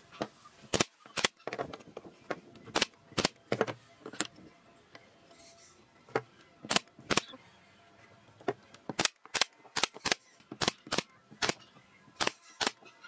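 Pneumatic brad nailer firing nails one by one into pine boards: sharp snapping shots, about two or three a second in runs, with short pauses in between, around two dozen in all.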